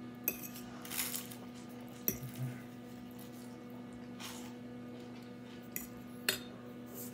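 Metal fork clinking and scraping against a plate while twirling spaghetti: a few sharp clinks spread through, with softer scrapes between, over a steady low hum.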